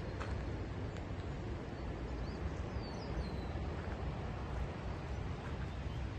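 Outdoor trail ambience: a steady low rumble with a few faint, short bird chirps about two to three seconds in.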